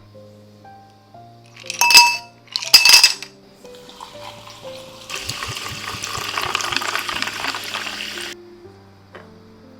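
Ice cubes dropped into a glass, clinking loudly twice with a short ring, then a drink poured over them for about three seconds, cutting off sharply. Soft piano background music plays underneath.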